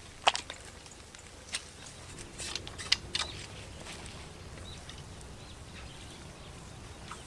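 A few sharp clicks and knocks, five or so at uneven spacing in the first three seconds, then only faint steady outdoor background.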